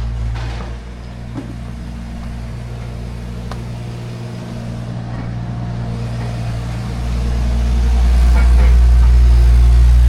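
Motor vehicle running, a steady low drone as if heard from inside the cab, growing louder about seven seconds in as it picks up speed or load.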